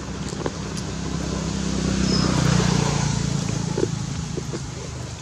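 A passing motor vehicle's engine: a low drone that grows louder to a peak about halfway through, then fades away.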